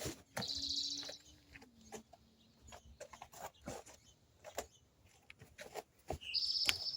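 Scattered small clicks and taps of hand work at a motorcycle's oil filter housing, with two short buzzy high-pitched chirps, one about half a second in and one near the end.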